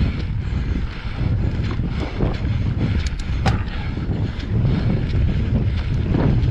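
Wind buffeting a GoPro's microphone over the rumble of a Pyga Hyrax mountain bike's tyres rolling fast down a dirt singletrack trail, with a few sharp clicks and rattles from the bike about three seconds in.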